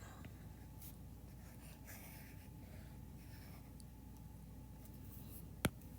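Faint scratching of writing strokes, with one sharp click near the end.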